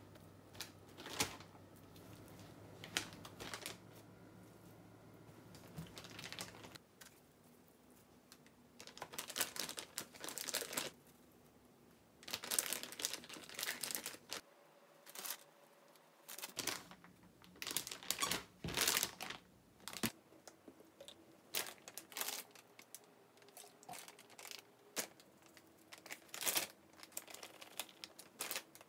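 Plastic zipper freezer bags crinkling and rustling in irregular bursts as raw chicken breast is packed into them and the bags are handled.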